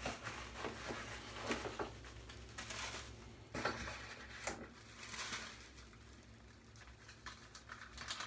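Faint rustling and crinkling of parcel packaging being handled and unwrapped, with scattered light clicks and taps, busier in the first half and dying down after about five seconds.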